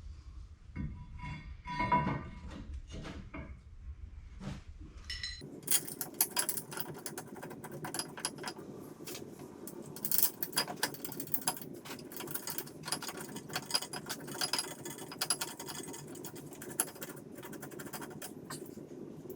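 Light metallic clicks, clinks and rattles of brake caliper parts and hand tools being handled during a front brake job. A low hum underneath stops abruptly about five seconds in, and irregular clicking goes on after it.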